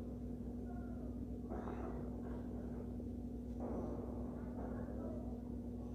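A cardboard smartphone box being handled and its seals opened by hand: rustling and scraping of card and paper about a second and a half in and again from about three and a half seconds, over a steady low hum.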